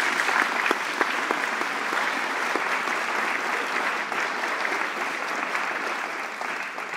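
Applause: many hands clapping in a dense, steady patter.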